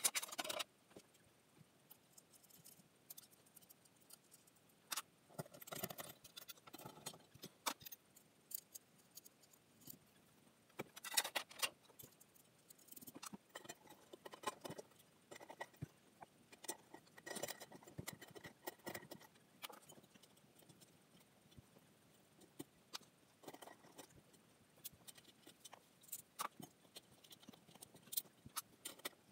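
Ceiling fan parts and small hardware being handled: faint, irregular clicks, clinks and rattles in short clusters with quiet gaps between them.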